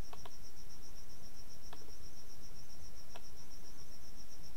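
Rapid, steady high-pitched chirping of an insect over a constant background hiss, with a few faint mouse clicks.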